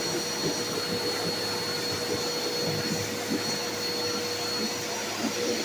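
A small pressure washer running steadily, spraying water, with a constant motor whine over the hiss.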